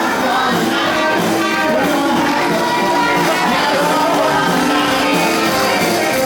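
Live band playing 1950s-style popular music at a steady, full level.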